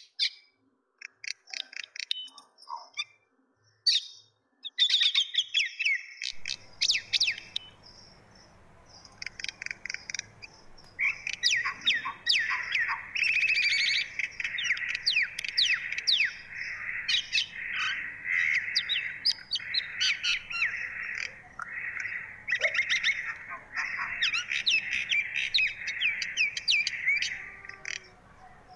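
Small birds chirping in quick, high twitters, sparse at first and becoming a dense, continuous chorus about a third of the way in. A faint low hum sets in about six seconds in.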